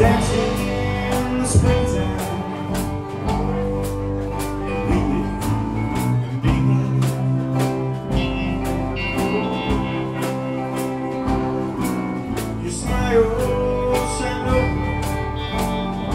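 Live alt-country rock band playing: acoustic and electric guitars, bass guitar and a drum kit keeping a steady beat of about two hits a second.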